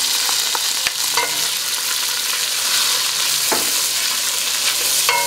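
Minced garlic sizzling in hot olive oil over medium-high heat in a stainless steel saucepan, stirred with a wooden spoon that knocks lightly against the pan a few times.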